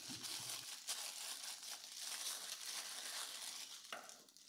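Clear plastic bag crinkling as it is handled and pulled open around a bundled charger cord and clamps, with a few small clicks; it dies down near the end.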